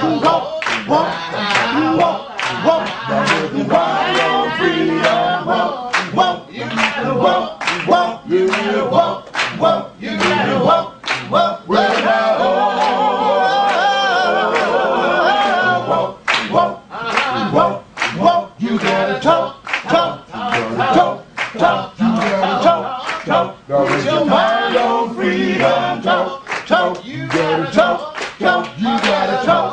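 Background music: a group of voices singing a cappella, with a steady beat of hand claps that drops out for a few seconds midway.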